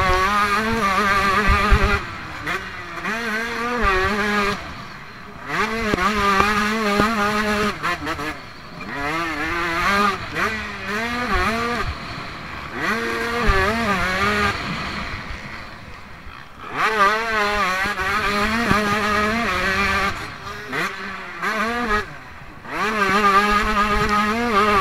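Motocross bike engine heard from an onboard camera, revving hard and falling away over and over as the throttle is opened and shut around a dirt track. The pitch climbs on each acceleration and drops off sharply several times in between.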